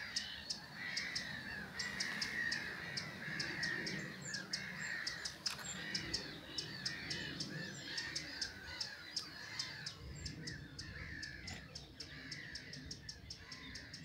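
Wild birds calling: caw-like calls that waver up and down, over a steady run of sharp, high ticking notes several times a second.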